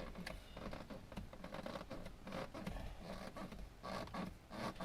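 Faint handling noises, light clicks and scraping, as the interior trim and a grommet are fitted back into a car door.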